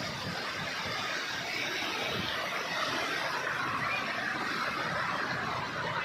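Waterfall water rushing in a steady, unbroken roar.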